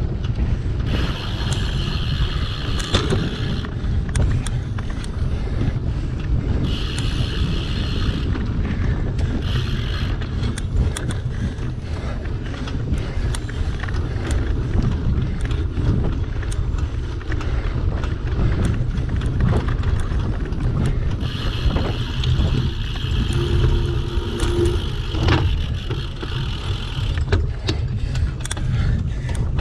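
Single-speed cyclocross bike ridden hard over rough race ground, rattling and clicking, with wind rumbling steadily on the action camera's microphone. Several times a higher hiss comes in for a few seconds and drops away.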